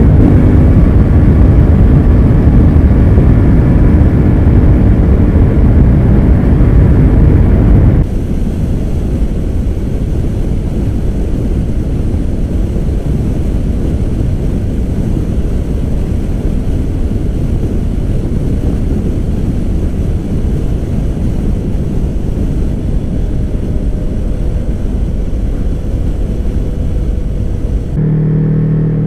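Yamaha R3's parallel-twin engine running at road speed through an Akrapovic carbon slip-on exhaust, a steady engine note. About eight seconds in, the sound cuts to a helmet-mounted microphone: mostly a steady rush of wind with no clear engine note. Near the end it cuts back to the engine running at a steady, lower pitch.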